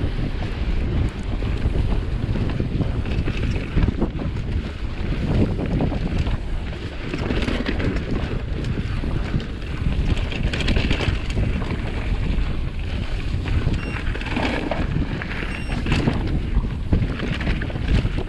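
Wind buffeting the microphone over the crackle and crunch of mountain bike tyres rolling fast over dry fallen leaves and dirt trail.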